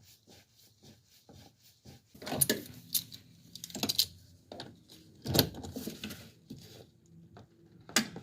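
Metal hand tools and AC line fittings clinking and clattering as they are handled and tightened: faint ticks at first, then louder sharp clinks and knocks from about two seconds in.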